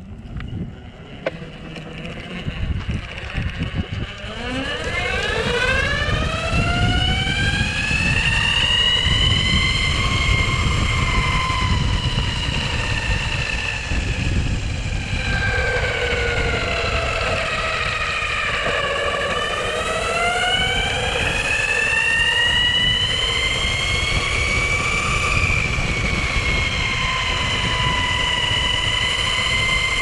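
Onsra Black Carve electric skateboard's belt-drive motors whining as the board speeds up a few seconds in, the pitch climbing, then dropping about two-thirds of the way through as it slows and climbing again. Under the whine, a steady rumble of the wheels on asphalt.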